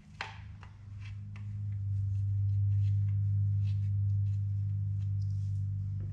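Lawn mower engine running steadily, a low drone that swells a little in the middle and eases near the end. Over it come a few light clicks as small shoulder washers are fitted into a carbon-fibre fender.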